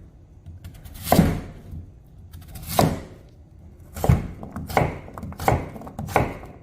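A kitchen knife cubing a Korean radish (mu) on a cutting board. Six chopping strokes, the first ones about a second and a half apart, then quicker, about every 0.7 s.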